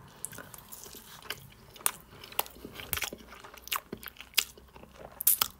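A person chewing a mouthful of fried chicken drumstick close to the microphone: irregular short crunches and clicks of chewing.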